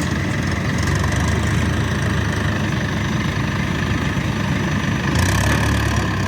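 Heavy diesel engine running steadily, with a louder, harsher stretch about five seconds in.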